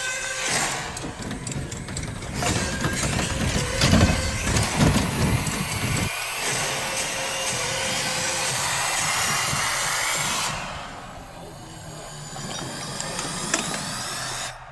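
Running noise of small electric race cars, a mechanical whirring and rattling that changes abruptly as short clips cut from one to the next, with a faint rising whine near the end.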